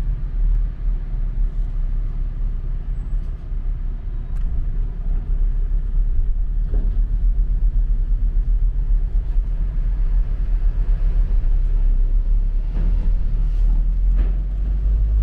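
Steady low engine rumble of a running motor vehicle.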